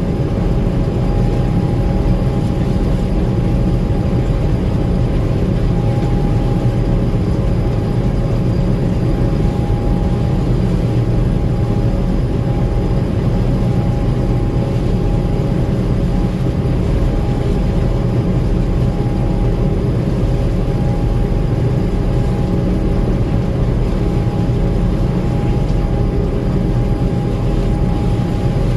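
Gleaner M2 combine running steadily, a heavy engine drone with a steady high-pitched whine over it.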